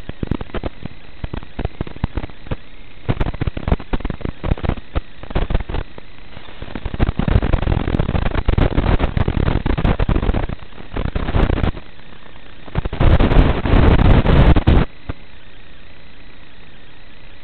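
Crackling static bursts over a steady hiss from an analog FPV video receiver as the link from the downed plane breaks up. The crackle comes in irregular clusters, densest about 7 to 11 seconds and 13 to 15 seconds in, then stops.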